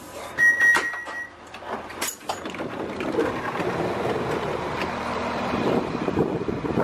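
A train door's warning beep, one steady high tone lasting about a second, with clunks from the door mechanism as the passenger door opens. After that comes the steady noise of the diesel train standing at the platform.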